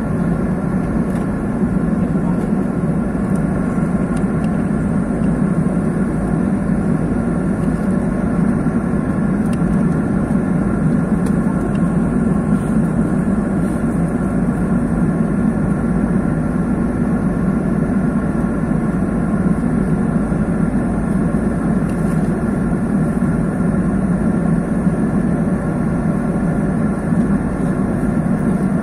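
Steady cabin noise of an Airbus airliner in cruise: the jet engines' drone and the rush of air around the fuselage, heard from inside the cabin, with a few faint steady whining tones above it.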